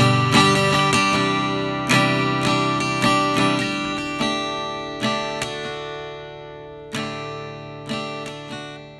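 Intro music: strummed acoustic guitar chords, each strum ringing on, coming further apart and getting quieter until the last chord fades out near the end.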